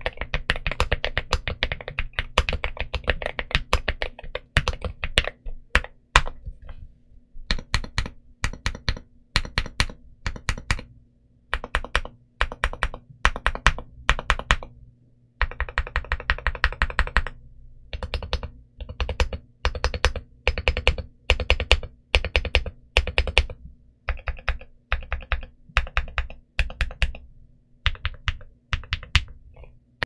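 Aluminium Akko JIN01 65% mechanical keyboard with Akko Rosewood switches and Santorini Cherry-profile dye-sub PBT keycaps, giving a deep, thocky keystroke sound. It starts with fast two-handed typing for about six seconds, then single keys are struck one at a time, about two a second, with a short quicker run in the middle.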